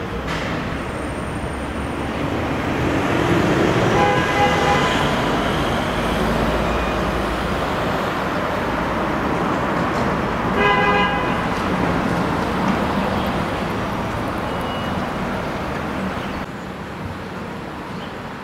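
Cars passing on a city street, a steady wash of traffic noise, with two short car-horn honks, one about four seconds in and another about eleven seconds in.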